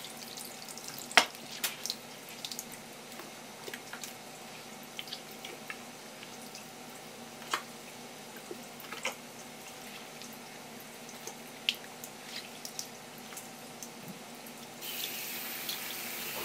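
Scattered light clicks, taps and drips of kitchen work at a sink, then a kitchen tap turned on near the end, water running with a steady hiss.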